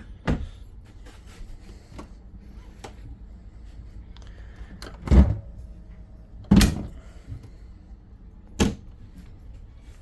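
Cockpit galley cupboard doors and lids being opened and shut: four loud knocks (about a second in, around five seconds, around six and a half seconds and near the end) with lighter clicks and taps between them.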